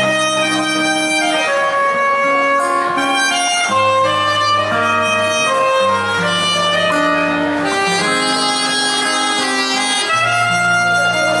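Soprano saxophone playing a melody of held notes over strummed acoustic guitar chords.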